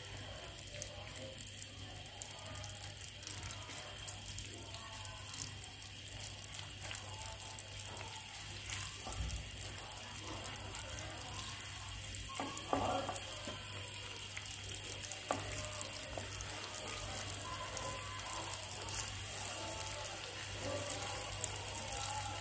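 Sliced onions sizzling and crackling in hot ghee in a frying pan, frying for a tadka, with a few knocks and scrapes as a wooden spoon stirs them.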